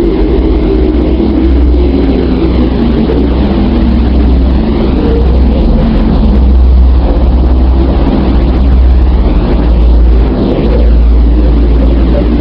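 The 'sound of planet Earth': a sonified space recording rather than a sound heard in air. It plays as a loud, steady low rumble with a hiss above it and faint sweeps rising and falling through the hiss.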